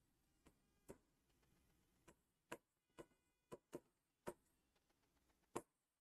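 Chalk tapping against a blackboard as words are written: faint, sharp, irregular taps, about nine in six seconds.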